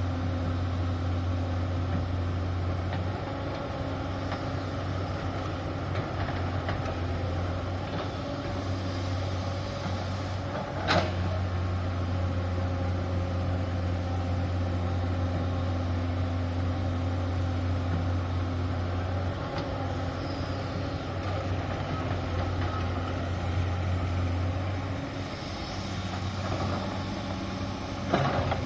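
Heavy diesel engine of construction machinery running steadily with a low drone, with a single sharp knock about eleven seconds in and a brief clatter near the end.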